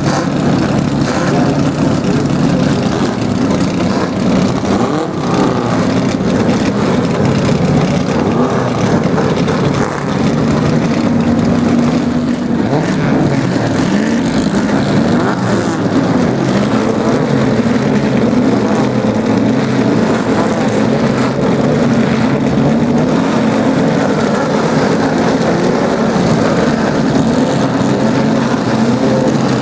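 A grid of classic saloon racing cars with their engines running together, idling steadily, with occasional revs rising and falling in pitch.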